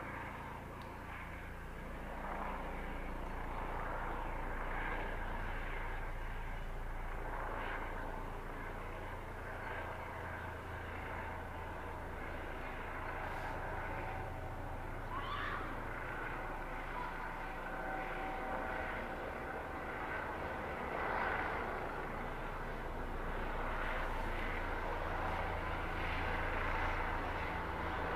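Police helicopter flying overhead, with a steady low drone from the rotor and engine. It grows a little louder near the end.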